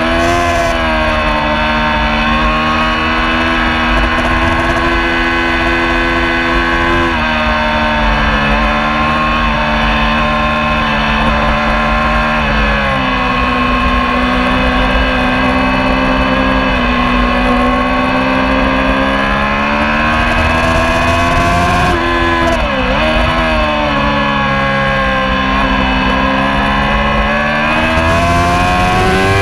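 Racing motorcycle engine heard from on board at high revs through a lap section. Its pitch steps down twice, dips and recovers about three-quarters of the way through, then climbs near the end as it accelerates.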